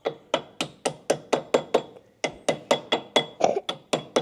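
Hammer striking metal in rapid, even blows, about four a second, each with a short metallic ring. There is a brief pause about two seconds in.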